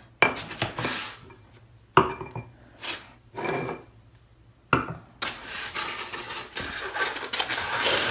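Ceramic plant pot and saucer knocking and clinking together as they are handled, a few sharp clinks with a short ring. From about five seconds in, continuous rubbing and scraping as the pieces are handled.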